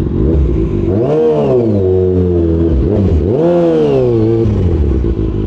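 Kawasaki ZX-6R's inline-four engine through an SC Project aftermarket exhaust, revved twice. Each time the pitch rises sharply and falls back to a steady low running note.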